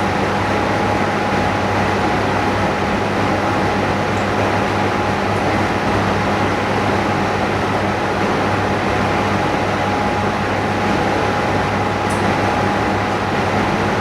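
Steady machine hum and hiss from running equipment, with a thin steady whine over it and no change in level.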